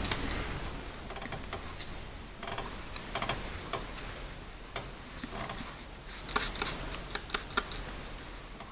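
Small clicks and short scratchy noises of first-aid supplies being handled while a wound is cleaned, coming in two clusters, about three seconds in and again about six to seven seconds in.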